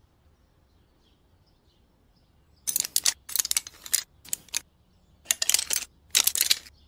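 Faint bird chirps, then five short bursts of metallic rattling and scraping from a chained padlock as its lock is picked.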